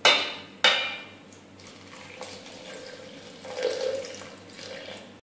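Two sharp metallic clinks in the first second, then milk pouring in a stream into a stainless steel mixer-grinder jar over chopped fruit and oats.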